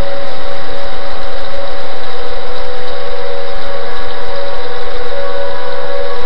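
Outdoor civil-defense warning siren sounding a steady tone for a severe-weather warning, over the steady noise of wind and heavy rain. The siren dips slightly midway and swells again near the end.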